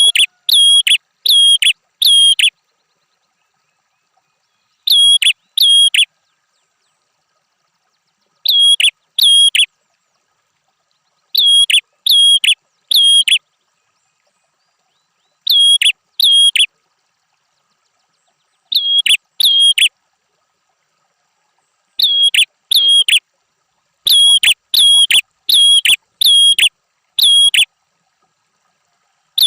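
Prenjak (prinia) calling: loud, identical clipped whistled notes, each a quick downward flick settling on a steady high tone, given in groups of two to six with pauses of two or three seconds between groups.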